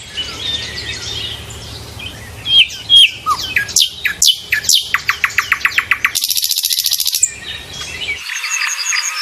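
Songbirds chirping and calling: short chirps and quick downward-sweeping whistled notes, rapid trills and a dense buzzy trill. About eight seconds in, the sound cuts abruptly to a different, thinner chorus of bird chirps.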